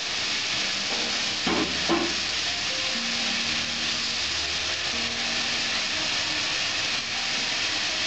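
Bay leaves sizzling in hot oil in an aluminium pot, a steady hiss. About a second and a half in, the wooden spatula knocks twice against the pot.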